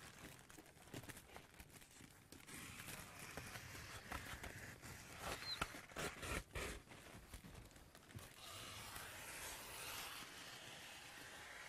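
Faint rustling and cutting of plastic vapour-control film, with a few small clicks and knocks.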